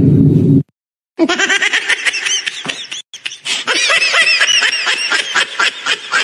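The end of a loud noisy blast sound effect cuts off suddenly. About a second in, a high-pitched giggling laugh sound effect starts: rapid bursts of laughter with rising and falling squeals, with a short break about three seconds in.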